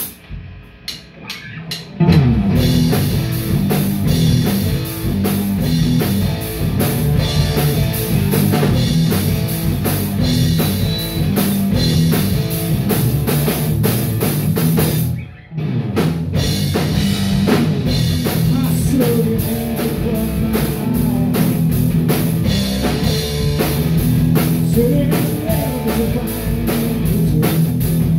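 Hard rock band playing live on electric guitar, electric bass and drum kit. The band comes in together about two seconds in, after a few sharp clicks. Around the middle it stops dead for a moment, then kicks back in.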